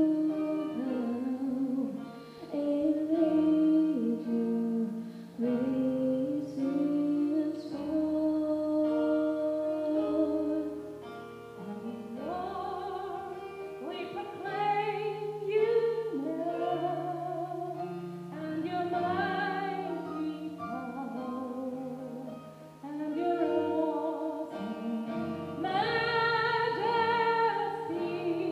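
Live gospel music: female voices singing held, moving melodic lines over instrumental accompaniment with a sustained bass line.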